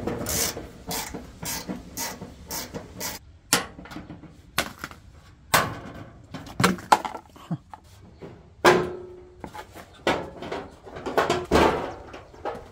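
A hand tool works the bolts of a Nissan 240SX's steel front fender, making a run of sharp clicks about three a second, then scattered louder metal clanks and knocks as the fender panel is worked loose. There is a short squeak about nine seconds in.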